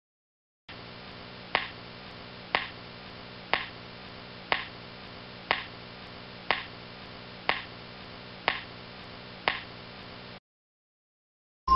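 Game-show countdown clock sound effect: a sharp tick once a second, nine ticks in all, over a steady low hum. It cuts off abruptly near the end.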